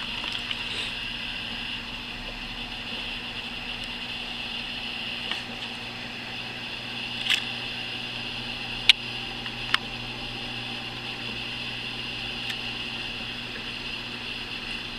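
Steady background hiss and low hum with no speech, broken by three short sharp clicks a little past the middle, the second of them the loudest.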